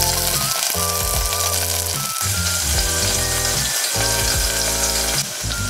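Food sizzling as it fries in shallow oil in a pan, a steady crackling hiss, with background music of sustained chords playing over it.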